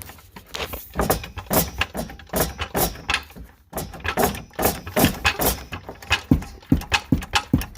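Floor jack being worked under the car's front cross member: a quick run of metallic clicks and clunks, about three a second, starting about a second in.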